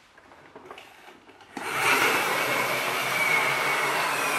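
Friction (flywheel) motor of a plastic Ford F650 toy tow truck whirring as the truck rolls across the floor. After faint handling scrapes, a steady whir starts suddenly about a second and a half in, with a high whine that falls slowly in pitch as the flywheel runs down.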